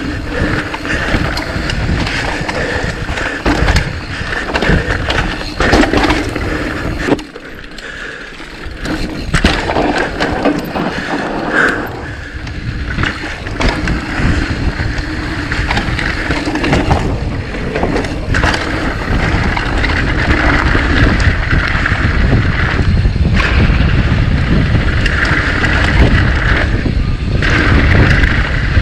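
Mountain bike riding down a dirt trail: knobby tyres rolling over rough ground, with the bike rattling and clattering over bumps. It eases briefly about seven seconds in.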